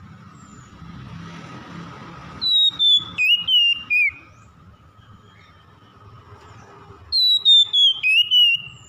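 Oriental magpie-robin singing: two loud phrases of clear whistled notes, each phrase stepping down in pitch, the first about two and a half seconds in and the second near the end.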